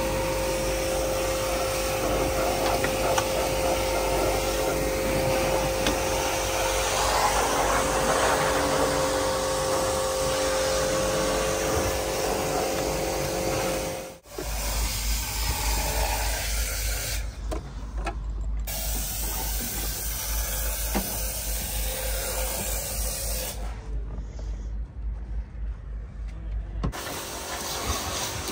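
An electric motor-driven cleaning machine runs steadily with a whine over rushing air. About halfway in there is an abrupt cut to a lower, more uneven machine noise.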